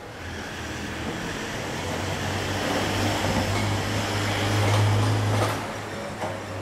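A road vehicle passing close by, with a low hum under a rushing noise that swells to its loudest about five seconds in and then drops away.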